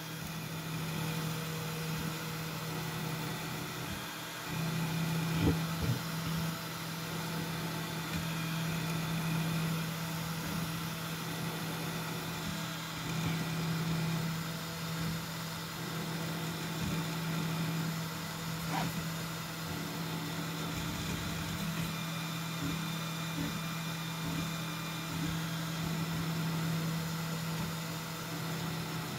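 3D printer running a print: the print head's stepper motors whir as it moves, over a steady fan hum, with a low tone that swells and eases as the moves change and a few faint clicks.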